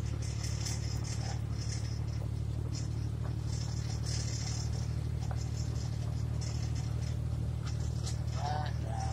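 Light vehicle with a manual gearbox driving along at a steady pace, heard from inside the cab: a constant low engine and road hum with brief, faint high hissy flecks over it.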